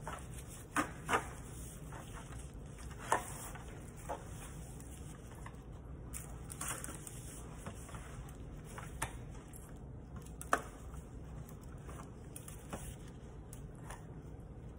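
Quiet handling noise of a plastic-gloved hand rubbing seasoning into a raw whole chicken in a disposable aluminium foil pan, with a few sharp clicks scattered through, over a steady low hum.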